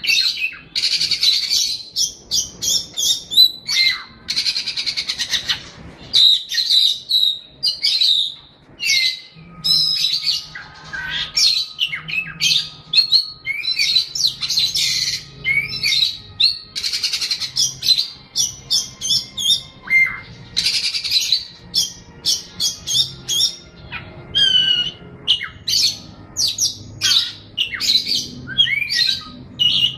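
A songbird singing a long, varied song of rapid chirps, trills and whistled notes, broken by brief pauses.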